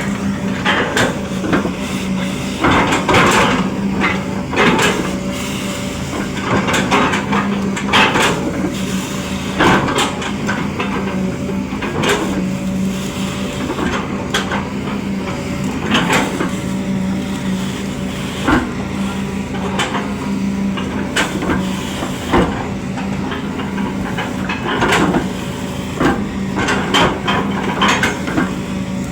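Excavator's diesel engine running steadily, with repeated knocks and clanks throughout.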